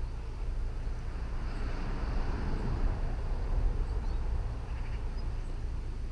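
Outdoor background noise: a steady low rumble with a broad rush of noise that swells and fades in the middle, and a few faint high chirps.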